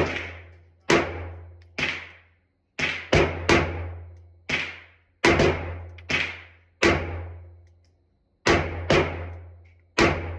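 Glock pistol fired in a slow, uneven string of about thirteen shots, some in quick pairs, each shot echoing with a reverberant tail as on an indoor range.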